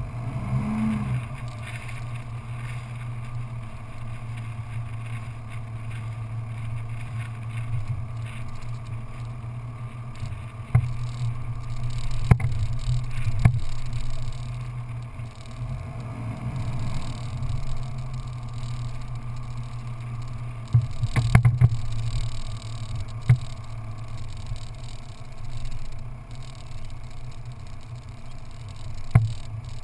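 Vehicle engine running steadily while driving on a sandy track. It revs up briefly about a second in and again about halfway through. Sharp knocks and rattles come from bumps along the way, most densely around two-thirds of the way through.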